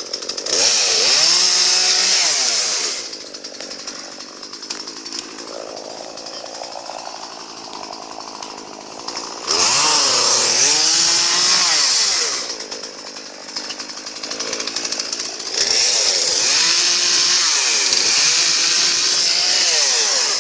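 Chainsaw running, revved up to full throttle three times, about half a second in, near the middle, and for the last few seconds, dropping back to a lower, quieter running speed in between.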